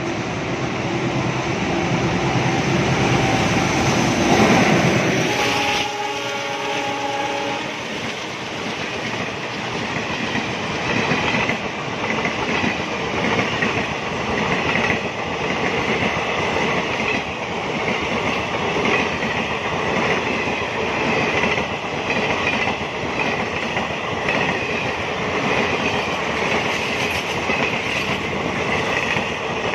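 Electric locomotive passing close by, its horn sounding for the first several seconds, then a long rake of blue passenger coaches rolling past with a steady rhythmic clickety-clack of wheels over rail joints.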